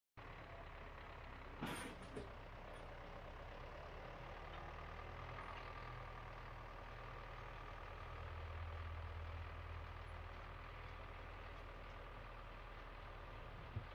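Tractor engine running steadily under load while pulling a SWAN AGRO NSEJT RT200 rotary tiller through the soil, with a faint steady whine over the low drone, which grows a little louder about halfway through. Two sharp knocks about two seconds in.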